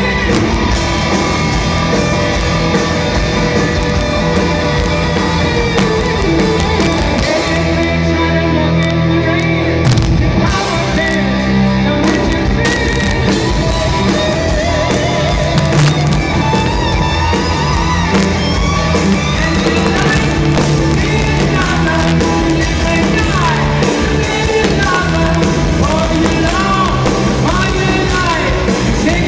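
Hard rock band playing live in an arena: lead vocals over distorted electric guitars, bass and drums, heard from the audience.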